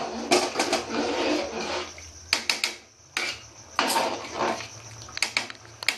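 Metal ladle stirring thick khichuri in a metal pot: scraping against the pot for about two seconds, then several short clinks and scrapes with brief pauses between.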